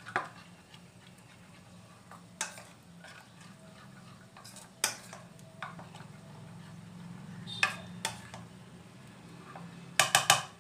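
Steel spoon stirring a thick yogurt and spice paste in a bowl: soft scraping with a sharp click of the spoon against the bowl every couple of seconds, then a quick run of taps near the end. A low steady hum underneath.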